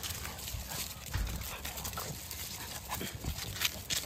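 Puppies scuffling about on grass strewn with dry leaves: irregular soft thumps and rustles, with a stronger thump about a second in and a couple of sharper scuffs near the end.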